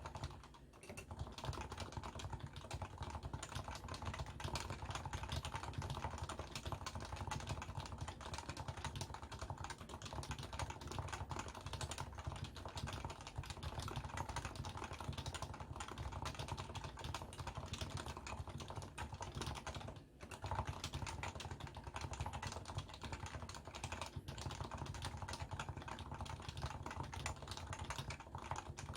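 Continuous fast typing on a Leopold FC660C keyboard with stock, non-silenced 45 g Topre electrostatic capacitive switches, recorded through a Samsung Galaxy S10+ phone microphone. The keystrokes run in a dense, even stream, with brief pauses about half a second in and about twenty seconds in.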